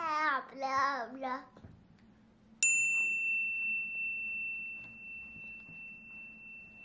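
A small child's voice briefly at the start, then a single bell-like ding about two and a half seconds in, ringing on one high clear tone that fades slowly over about five seconds.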